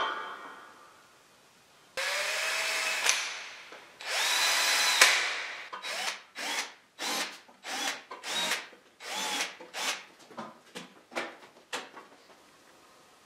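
Cordless drill drilling into a wooden table frame through the holes of a steel mounting plate. A knock at the start, then two longer runs with a rising whine, then a string of about a dozen short trigger bursts, each spinning up, stopping about a second before the end.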